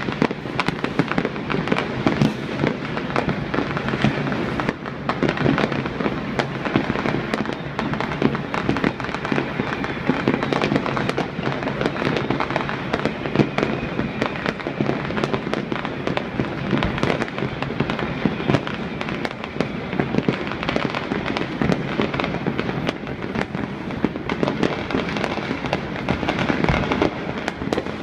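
Fireworks going off all over a city at once: countless overlapping bangs and pops with no let-up.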